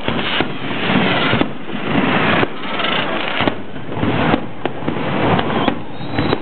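Fireworks display: shells bursting in rapid succession over continuous crackling, with a sharp report about once a second.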